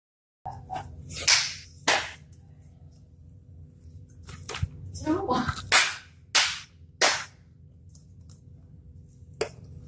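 Handling noise as styrofoam pieces and a small motor are pressed together on a table: about seven short, sharp scrapes and knocks, with a brief squeak midway, over a steady low hum.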